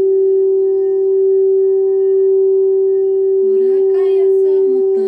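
Frosted quartz crystal singing bowl sung by a mallet circling its rim, giving one steady, sustained pure tone with faint higher overtones. About three and a half seconds in, a woman's wordless vocalizing comes in over the tone.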